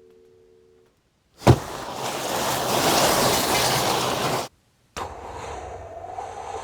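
Layered film sound effects for a car scene: one heavy hit, then a loud rushing noise that cuts off abruptly about three seconds later. After a brief gap, a quieter rushing rumble starts.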